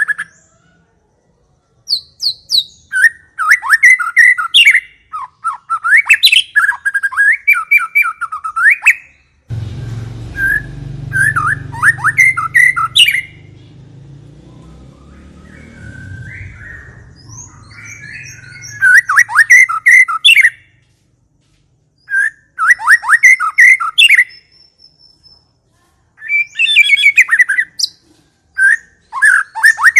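White-rumped shama (murai batu) singing loud bursts of rapid, sweeping whistled notes, each phrase a second or two long with short pauses between. From about ten seconds in, a low rumbling noise lies under softer song for several seconds before it clears.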